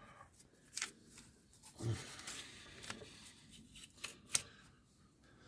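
Small metal pump parts being handled on a workbench: scattered light clicks and taps, a dull knock about two seconds in, and brief scuffing between them.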